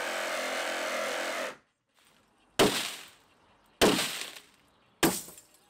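A cordless power tool runs steadily for about a second and a half as it works on the conservatory's aluminium window frame. Then come three sharp, loud crashes about a second apart, each dying away quickly.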